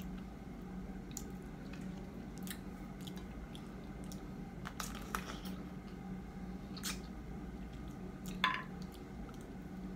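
Close wet chewing and mouth smacks of a person eating soft, juicy fruit, in short irregular clicks, the loudest about eight and a half seconds in. A low steady hum runs underneath.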